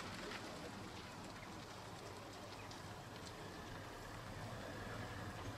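Car towing a caravan at low speed, its engine a faint steady hum under an even hiss.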